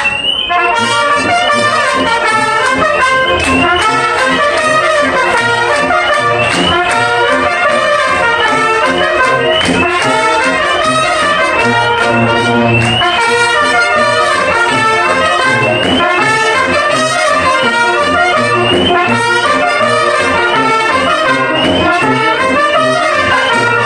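Street brass band of trumpets, trombones and tubas playing a tune together, with a steady beat.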